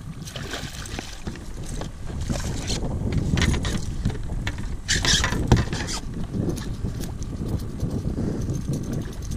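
A hooked fish thrashing and splashing at the surface beside a kayak, in a few louder bursts, over a steady low rumble of wind on the microphone, with clicks from the rod and reel being handled.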